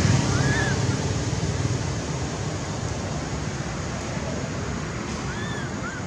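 Steady rushing outdoor background noise with a low rumble that eases over the first two seconds. A faint short high chirp comes about half a second in, and a quick run of faint chirps starts near the end.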